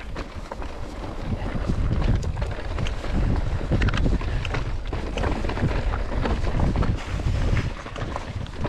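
Wind buffeting the action camera's microphone: a loud, continuous low rumble with many scattered sharp clicks and knocks over it.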